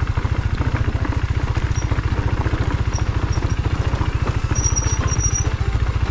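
KTM 390 Duke's single-cylinder engine running at low revs, a steady, even low pulsing beat.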